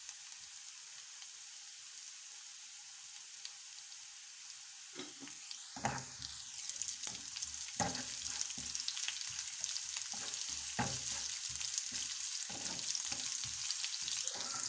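Sliced onions and julienned ginger sizzling in hot oil in a nonstick frying pan. From about five seconds in, a spatula stirs them, with many quick scrapes and taps against the pan as the sizzle grows louder.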